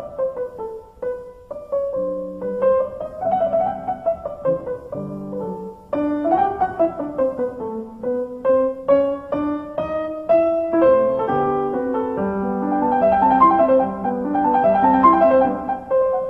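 Solo piano playing a classical piece: a continuous run of separate notes, a melody in the middle register over lower accompanying notes.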